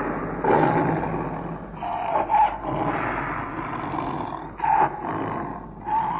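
An animal calling in several rough, noisy bursts, a few seconds apart.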